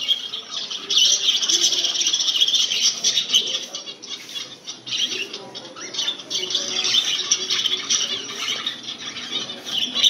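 Many small cage birds chirping and chattering together in a dense, continuous high twitter, zebra finches among them.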